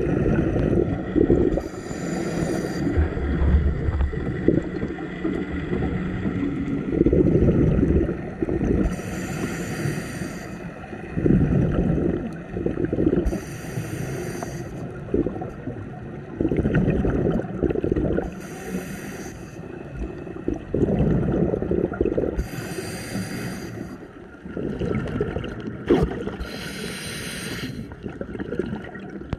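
Scuba diver breathing through a regulator underwater: six inhalations in about half a minute, each a short hiss, each followed by a longer low bubbling rumble of exhaled air.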